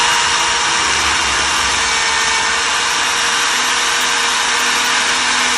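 Corded hammer drill running at a steady speed in regular drill mode, its masonry bit spinning against brick. With the hammer action off, the bit will not go into the brick.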